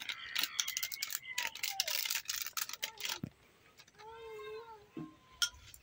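A quick run of small clicks and taps, then a cat meows once, about four seconds in, in one short arching call.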